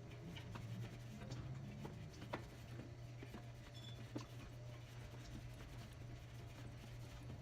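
Scattered light clicks and taps of hand work on a bicycle during a tune-up, over a steady low hum; two sharper clicks come about two and four seconds in.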